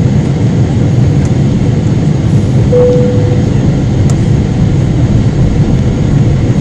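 Steady roar of jet engine and airflow noise inside the cabin of a Boeing 777-300 on approach, heard from a window seat beside the engine. A short steady tone sounds briefly about three seconds in.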